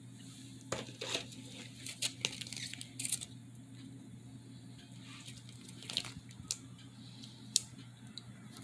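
Faint rustling and a scattered series of light clicks from a trading card being handled and slid into a plastic card sleeve, over a steady low electrical hum.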